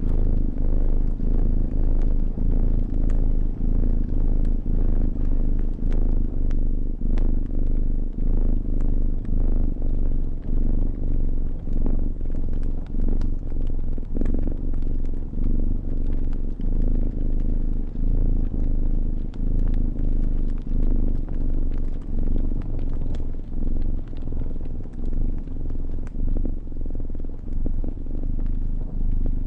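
Cat purring close up: a steady low rumble that swells and dips about once a second with its breathing. Small pops and crackles of a wood fire sound over it.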